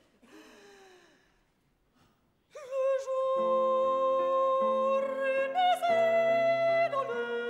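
Operatic soprano singing over piano chords. After about two and a half seconds of near silence she enters on a long held note, moves up to a higher note near the end, then drops back.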